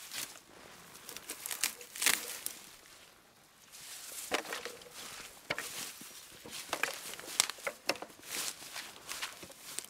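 Footsteps and rustling through tall grass: irregular crackles and swishes of stems brushed and trampled, with a brief lull about three seconds in. The mower's small petrol engine is not running.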